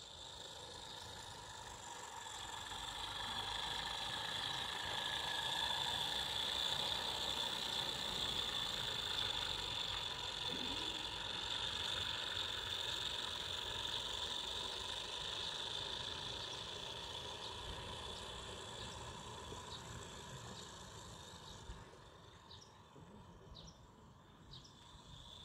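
A 16 mm scale garden-railway model train running along the track: a steady high-pitched whirring hiss that swells over the first few seconds and fades away after about eighteen seconds, with a few faint clicks near the end.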